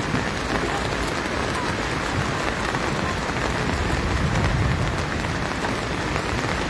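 Steady rain pouring down onto a paved road and plastic tarps.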